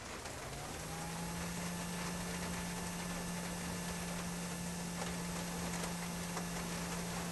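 Mini handheld induction heater running with a bolt in its coil: a faint, steady low hum that starts about half a second in and rises briefly to a steady pitch, with a fainter higher whine alongside.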